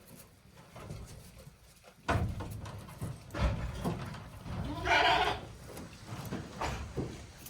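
A day-old kid goat bleating once, a short high call about five seconds in, amid knocking and rustling that starts suddenly about two seconds in.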